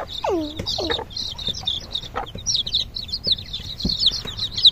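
Newly hatched chicks peeping rapidly and without pause, shrill and high-pitched, while their mother hen gives two low, falling clucks about half a second apart near the start.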